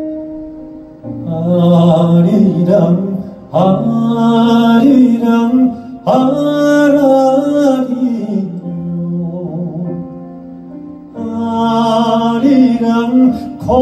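A man singing slow, drawn-out phrases in Korean traditional (sori) style into a microphone, his voice bending and wavering in pitch, over a soft held accompaniment. The voice comes in about a second in, eases off for a few seconds past the middle, and returns near the end.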